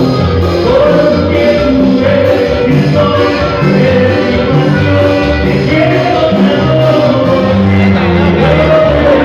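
A band playing Latin music, with a singer holding a gliding melody over a steady bass line.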